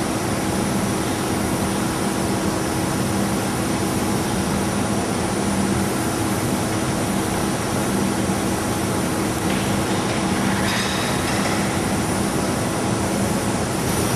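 Steady hiss and hum of hose-fed paint-spraying equipment and shop machinery while an aircraft fuselage is spray-coated; a brighter hiss rises briefly about ten seconds in.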